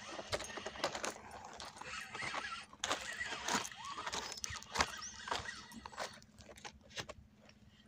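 Handling noise from a spinning rod and reel while playing a hooked fish: irregular clicks and rattles, with a few short squeaky glides. It quietens near the end.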